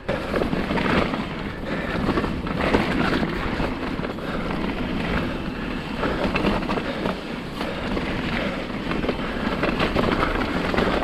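Mountain bike rolling over a rough dirt trail: steady tyre noise with frequent knocks and rattles from the bike over bumps, and wind on the microphone.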